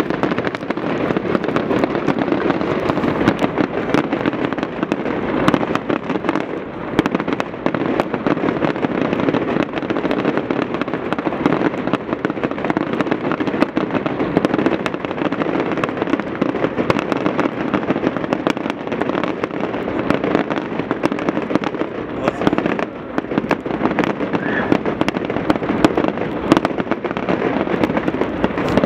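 Fireworks finale barrage: a continuous dense rush of crackling with many sharp bangs layered on top, heard through a rain bag over the camera, which muffles it and adds odd noises.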